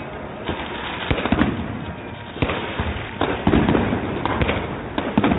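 Fireworks going off: a string of sharp bangs and cracks at irregular intervals, over a continuous noisy background.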